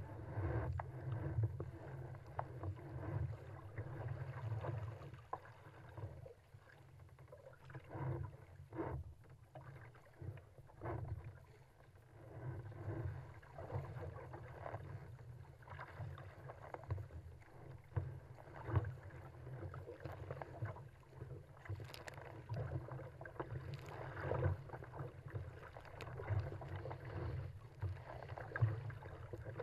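Water rushing and slapping against a kayak's hull as it is paddled downwind through choppy sea, in irregular surges and splashes over a steady low rumble.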